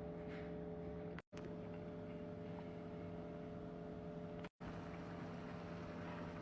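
A steady machine hum with a constant low pitch, broken twice by sudden dead-silent gaps where the audio is cut.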